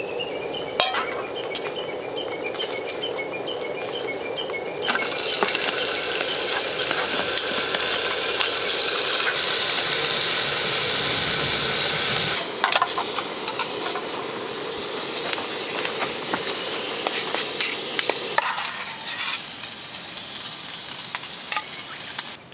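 Sliced meat sizzling in a small grill pan on a gas cartridge stove, with metal tongs clicking against the pan. The sizzle jumps up sharply about five seconds in and cuts off abruptly around twelve seconds in.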